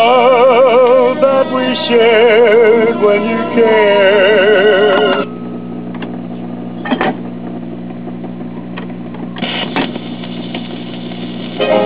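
A 78 rpm record playing through the 1947 Admiral portable phonograph's three-tube amplifier, a singer with a wide vibrato, stops abruptly about five seconds in. The record changer then cycles, with two clunks as the tone arm swings out and the next record drops, over a steady mains hum that the owner puts down to a ground fault. The next record starts playing just at the end.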